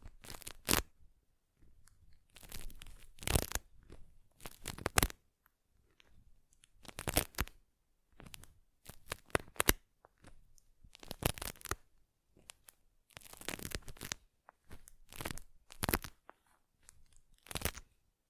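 Close-miked ASMR facial-treatment touch sounds: crisp scratching and rubbing strokes in short bursts, roughly one to two a second, with brief pauses between.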